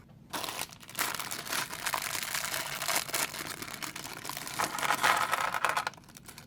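Plastic packaging crinkling and rustling as a small Lego set is opened and handled, with a burst of sharp crackles; it stops shortly before the end.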